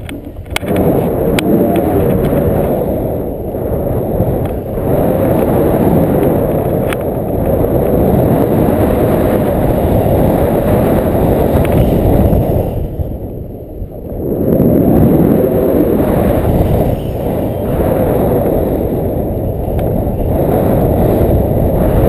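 Wind buffeting a camera microphone in flight on a tandem paraglider: a loud, steady rush of air that eases for about a second some thirteen seconds in, then returns.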